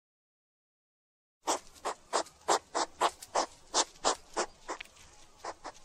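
Hedgehog snuffling: a quick run of short, breathy sniffs, about three a second, starting about a second and a half in.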